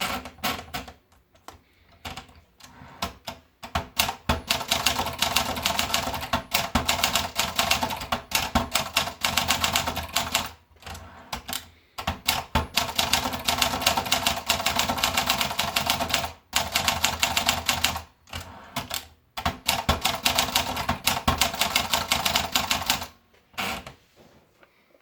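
Olympia Splendid 66 manual portable typewriter being typed on quickly: long runs of rapid key strikes, with a few short pauses.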